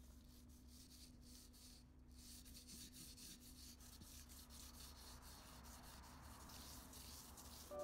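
Vine charcoal scratching across newsprint paper in short, irregular strokes as construction lines are drawn. It is faint, over a steady low hum.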